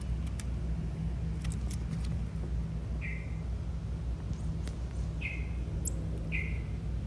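Three short, high chirps about a second or two apart, over a steady low hum, with a few faint sharp clicks.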